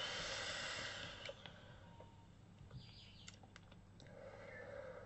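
A long hissing draw through a VooPoo Drag vape mod's atomizer at 50 watts, lasting a little over a second, followed by a few faint clicks and a soft exhale of vapour near the end.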